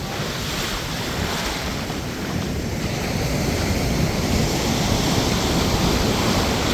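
Ocean surf washing up the beach, the heavy swell of storm Eugene, growing slowly louder, with wind rumbling on the microphone.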